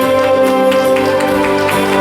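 Instrumental music with long held notes.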